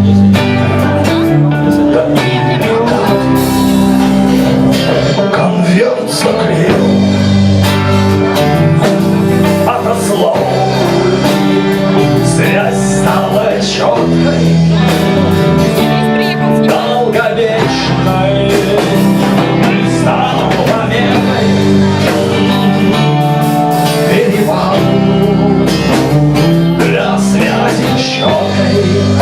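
Live rock band playing: electric guitars, bass and drums, amplified through a PA.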